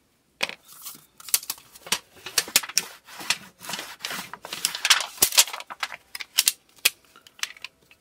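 Thin flattened aluminum drink-can sheet crinkling and crackling as it is handled and shifted about, in an uneven run of sharp clicks and rustles.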